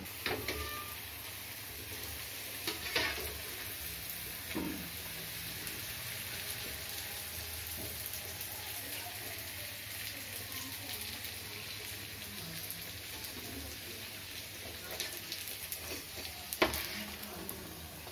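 Sweet stuffed pooris deep-frying in hot oil in a metal kadhai: a steady sizzle with fine crackling. A few sharp clinks of a slotted spoon against the pan, the loudest near the end.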